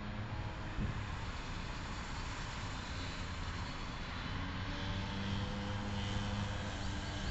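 Small 50 cc two-stroke engine fitted with a big-bore race kit and 19 mm race carburettor, on a converted scooter, running at high revs as it laps the track: a steady drone whose higher tone swells a little about three seconds in and again near the end. A brief knock about a second in.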